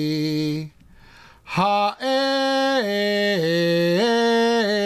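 A man chanting Hebrew scripture to cantillation (haftarah trope), drawing each syllable out on long held notes that step up and down in pitch. A held note stops just under a second in, and the chant picks up again about a second later.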